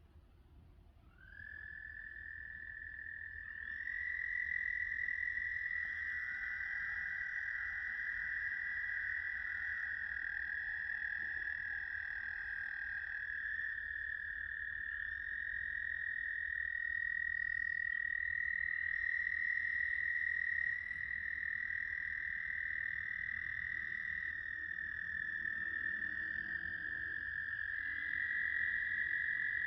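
Several American toads trilling: long, steady, high-pitched trills. The first starts about a second in, and others at slightly different pitches join and overlap so the calling never breaks.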